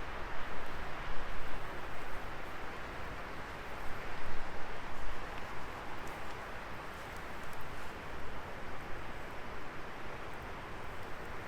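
Firewood burning in a fire pit: a steady rush of flames that swells and eases, with a few faint crackles.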